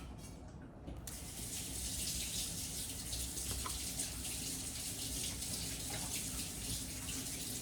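Water running steadily from a tap, turned on about a second in.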